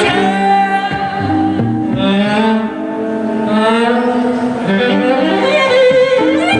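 Live instrumental passage on violin: a bowed melody with sliding notes over steady sustained low notes.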